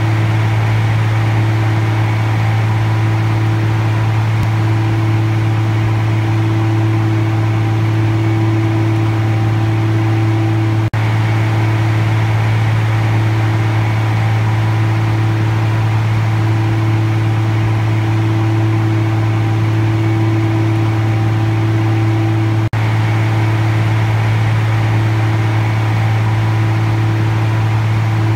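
Tractor-drawn potato digger lifting horseradish, its steel-bar conveyors and the tractor's engine running as a loud, steady mechanical drone with a constant low hum. The sound breaks for an instant twice.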